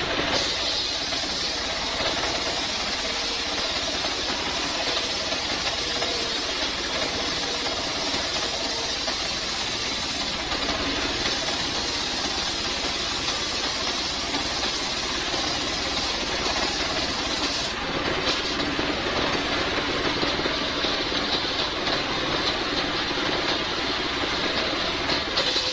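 Homemade circular sawmill powered by a stationary engine, running steadily while its blade cuts lengthwise through a coconut palm log: the engine's drone mixed with the hiss of the saw in the wood.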